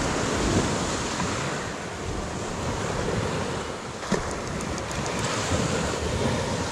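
Sea surf washing onto the beach in a strong wind, with gusts buffeting the microphone: a steady noise of waves and wind. The sea is building up in the wind.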